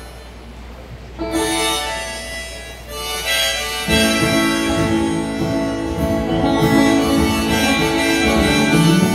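Live acoustic country band starting a song: held melody notes open it, then acoustic guitar and banjo come in together about four seconds in and the music gets fuller and louder.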